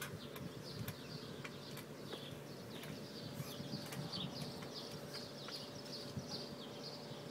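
Trampoline springs squeaking in a quick, steady rhythm, about three squeaks a second, as a child bounces on the mat, with scattered sharp clicks.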